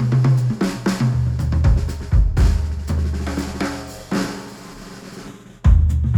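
A music track with a full drum kit (kick, snare, hi-hat, cymbals) over a held low bass line, played through studio headphones and picked up by microphones at the earcups. The music thins out and drops in level for about a second and a half near the end, then the full beat comes back in loudly.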